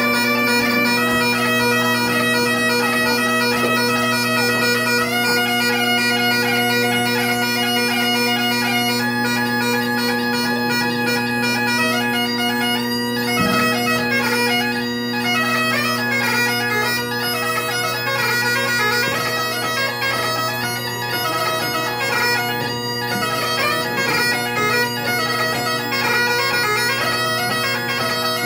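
Great Highland bagpipe played solo: the drones hold one steady low chord throughout while the chanter plays a melody of quick notes above them.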